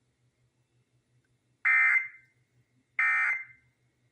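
Emergency Alert System end-of-message data tones: two short, loud, buzzy bursts of SAME data signal about 1.4 s apart, starting about a second and a half in. They mark the close of the required monthly test message.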